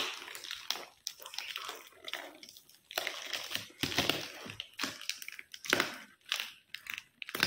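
Gift packaging being crinkled and torn open by hand in irregular rustling rips, then pulled at with the teeth near the end because the packing is so tough.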